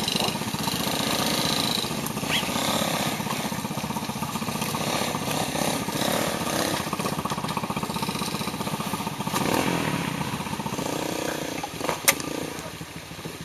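Small motorcycle engine idling steadily, with a sharp click about twelve seconds in.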